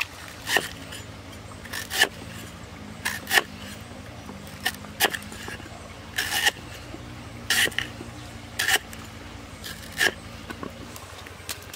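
A large kitchen knife slicing a fresh root on a wooden chopping board: sharp knocks of the blade hitting the board at an uneven pace, about one a second.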